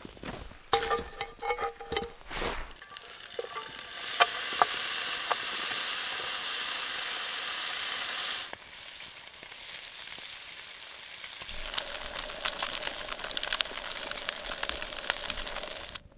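Food sizzling in a pan, after a few clinks and taps at the start. The sizzle is steady, drops quieter for a few seconds in the middle, comes back with light crackling, and cuts off suddenly near the end.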